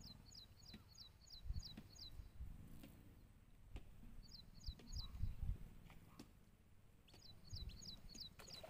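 A bird calling in three quick runs of short, high, sharp notes, about three or four notes a second, with low thumps on the microphone in between.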